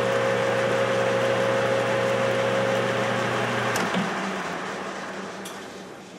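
Enco metal lathe running with a steady whine. About four seconds in it is switched off with a click, and the chuck coasts down, getting steadily quieter.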